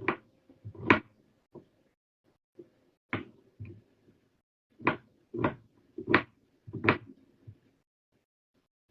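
A series of short, sharp knocks and bumps, about seven, coming irregularly with quiet gaps between them.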